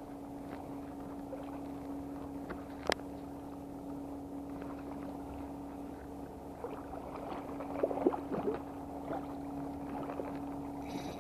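Shimano Nasci 1000FB spinning reel being cranked steadily, a continuous gear whirr. A single sharp click comes about three seconds in, and a flurry of small clicks and crackles around eight seconds in.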